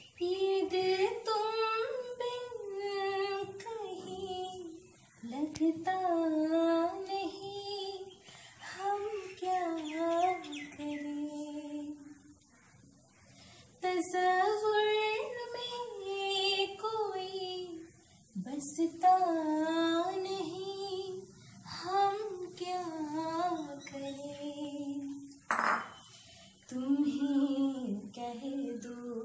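A woman's voice singing a song without accompaniment, in phrases of a few seconds with short pauses and held notes.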